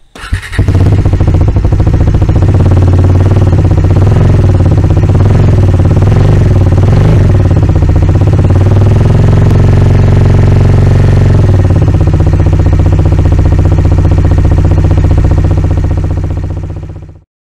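Bajaj Dominar 250's single-cylinder engine and exhaust running steadily, a loud, deep exhaust note. It starts abruptly just after the beginning, its higher tones waver a little in the middle, and it stops near the end.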